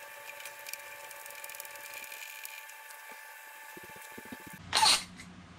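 Steady workshop hum of several pitches with a few light clicks from parts being handled. Near the end the hum cuts off abruptly, and a short loud rustling clatter follows.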